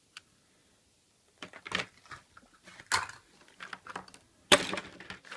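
Scattered clicks and crinkling of a surprise egg being handled and opened. The loudest crackle comes about four and a half seconds in.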